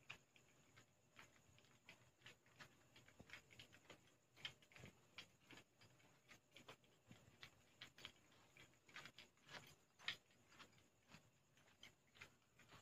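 Faint, uneven clicking, two or three sharp little clicks a second, which the uploader takes to be the noise of a praying mantis.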